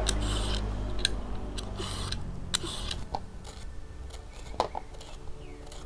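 Knife scraping the tough skin off a ridged luffa gourd in short strokes, then a few sharp clicks and knocks as pieces of cut gourd are handled and dropped into a bowl.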